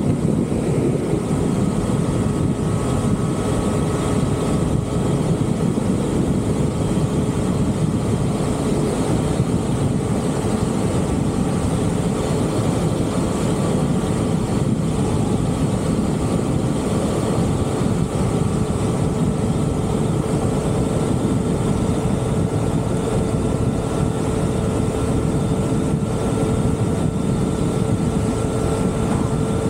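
A vehicle engine running at a steady cruising speed: a constant hum over a dense low rumble of wind and road noise, with no change in pace.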